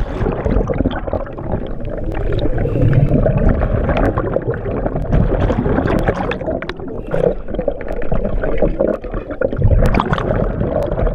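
A splash as a scuba diver enters the water, then continuous underwater bubbling and rushing water, heard underwater, as the diver descends.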